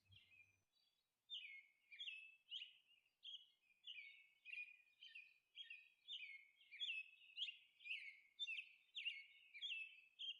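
Faint bird chirping: a steady series of short, high chirps, each dropping in pitch, two or three a second, starting about a second and a half in.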